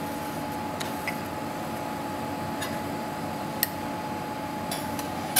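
Steady restaurant-kitchen background hum with a faint constant tone, and a handful of light ticks and clicks scattered through it.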